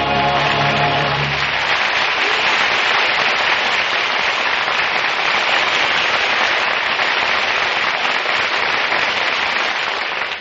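Studio audience applauding as the orchestra's final chord dies away in the first second or two; the applause holds steady, then begins to fade near the end.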